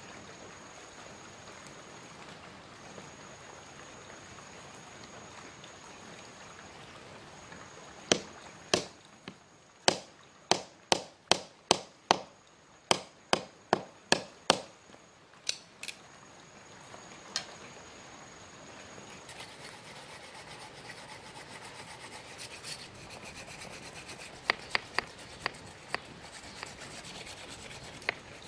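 A knife chopping into a bamboo strip laid on a log: about fifteen sharp knocks in quick succession a few seconds in. Then the blade scrapes along thin bamboo sticks as they are whittled, with small clicks. A faint high steady tone, broken in places, sits behind the first part.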